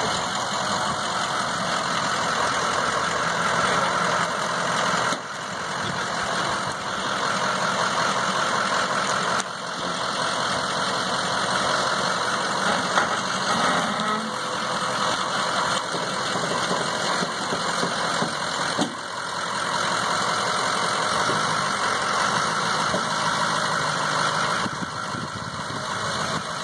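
Pickup truck engine idling steadily while the truck creeps slowly with a fifth-wheel trailer hitched.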